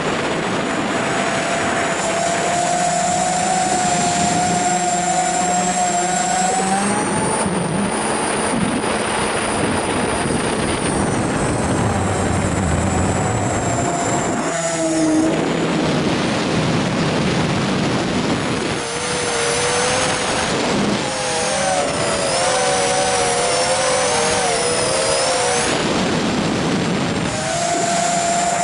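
FPV drone's electric motors and propellers whining over rushing air noise, the pitch rising and falling as the throttle changes; from about two-thirds of the way in, several motor tones weave apart at different pitches during flips and rolls.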